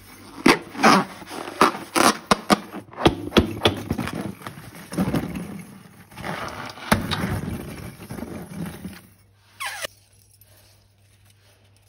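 Balloons and slime handled by hand: a busy run of crackling, clicking and scraping with a few short rubbery squeaks. It ends about ten seconds in with a short falling squeal.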